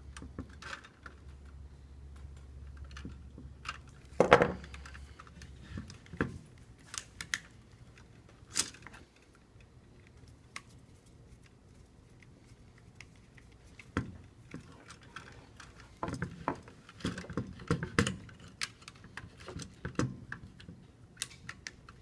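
Scattered clicks, snips and light metallic clinks of hand tools on electrical work: cutters snipping and stripping 14 AWG wire, and a screwdriver turning the terminal screws of a three-way switch. The loudest is a single ringing clink about four seconds in.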